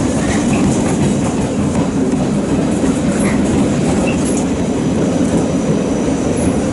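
Stainless-steel suburban passenger coaches rolling past as the train pulls out of the station: a steady rumble of wheels on the rails.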